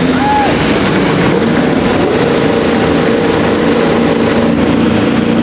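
IndyCar race cars' 2.2-litre twin-turbocharged V6 engines running together on the starting grid just after being started, a steady loud drone with the pitch wavering slightly.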